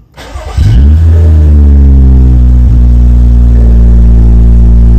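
BMW 535i's N55 turbocharged inline-six cranks and fires within about half a second. Its revs flare and then settle into a steady idle at about 1000 rpm, heard from inside the cabin. The start shows the newly fitted low-pressure fuel pump delivering fuel to the engine.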